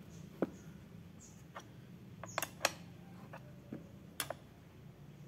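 A spanner clicking and tapping against the metal clamp and bolt under a bicycle saddle as the saddle is being taken off: about six sharp metallic clicks, spaced irregularly.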